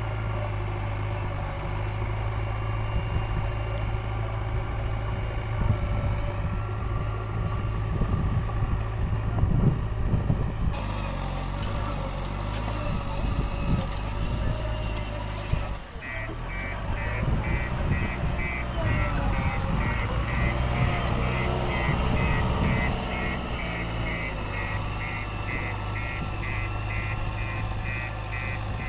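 JCB 3DX backhoe loader's diesel engine running steadily. About halfway through, a reversing alarm starts beeping about twice a second and keeps on.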